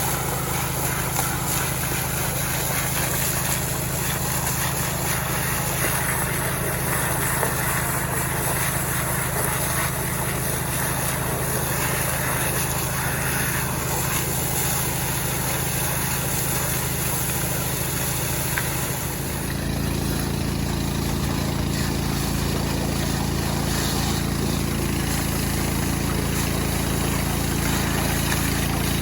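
Small Robin petrol engine running steadily; about two-thirds of the way through its note changes, as the engine speed shifts.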